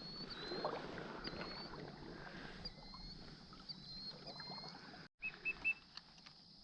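Quiet marsh background with a faint high chirp repeating about once a second, and three short high peeps in quick succession a little past the middle.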